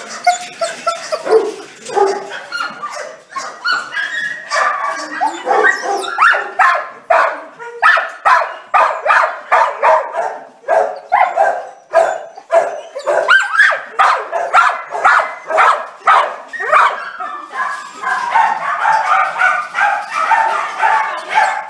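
Dogs in shelter kennels barking, short sharp barks several a second that overlap into a steady din. Near the end the barks run together into longer, higher yelping.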